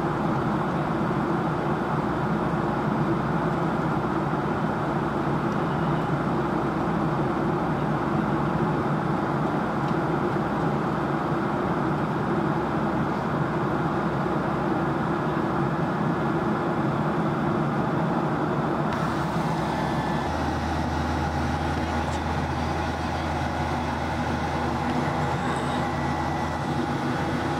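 Steady drone of an airliner's turbofan engines and rushing air heard inside the cabin in flight. About two-thirds of the way in the sound shifts slightly and a low hum joins it.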